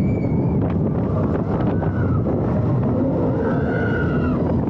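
Steady low rumble of wind on the microphone, with a couple of brief, faint pitched calls above it about two and four seconds in.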